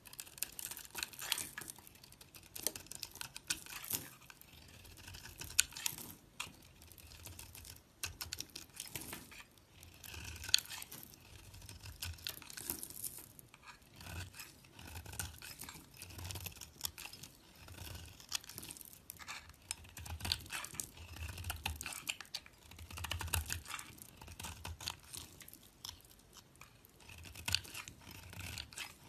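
A blade cutting and carving a bar of soap: repeated irregular strokes, each a crisp run of small clicks, with soft low thuds now and then.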